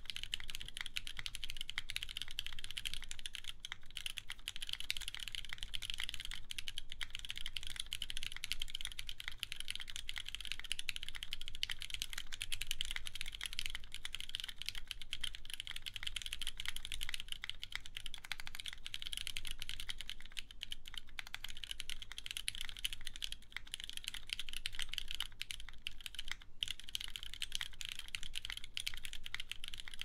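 Fast, continuous typing on a Thebloodyez 70o mechanical keyboard: Cherry MX Black linear switches, lightly lubed, in a full aluminium plate, under GMK Hydro keycaps. It is a steady, unbroken stream of keystrokes.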